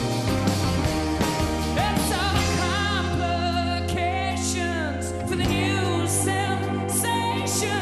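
Live rock band playing a song, with a male lead vocal over electric and acoustic guitars and drums.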